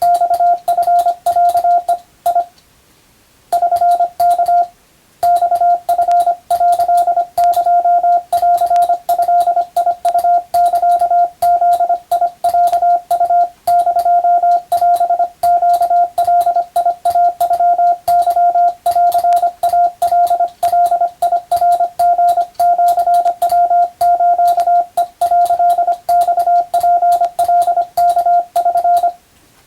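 Morse code sent as a single steady beep, keyed on and off rapidly in dots and dashes at a fast operator's speed. There are short breaks about two and a half and about five seconds in, and the sending stops shortly before the end.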